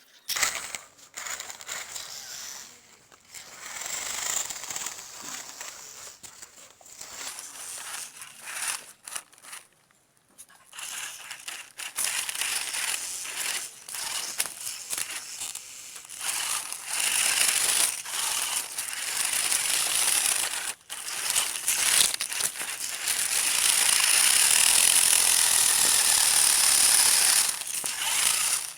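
Toy RC rock-crawler car driving over rough ground: its small electric motor and plastic gears whirring in stops and starts, with crackling and crunching from the wheels and body. It runs longer and louder in the last few seconds.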